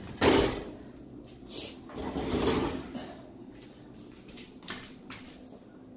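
Oven door shutting with a sharp clunk, followed by quieter handling and rustling noises.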